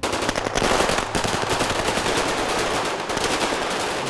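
Automatic rifle fire in a firefight: many shots in rapid, overlapping bursts, breaking out abruptly.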